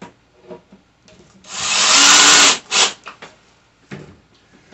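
Power drill driving a screw into the bookcase panel: one run of about a second starting about a second and a half in, then a short second burst to seat it, with a few light knocks around it.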